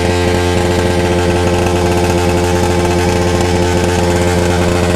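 Motorcycle engine running at a steady, unchanging speed just after fording a stream. The rider finds the bike not pulling and fears the clutch plate has got stuck.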